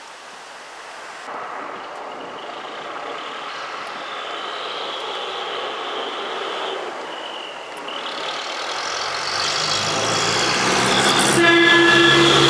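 Decorated Japanese truck (dekotora) pulling out, its diesel engine getting steadily louder as it approaches, then its multi-trumpet air horns sounding a loud chord about a second before the end.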